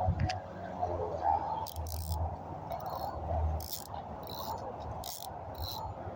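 Steady outdoor insect chorus, with a few short rustling noises over it.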